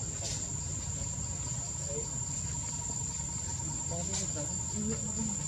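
Insects droning steadily at one high pitch, over a low rumble.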